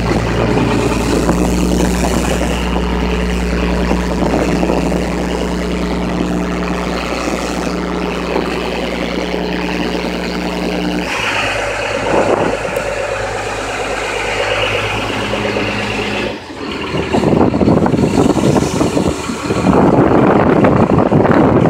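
A skiff's engine running steadily beside breaking surf, with white water rushing over rock ledges. About eleven seconds in, the engine drops to a lower pitch. Near the end, the rush of the surf surges louder.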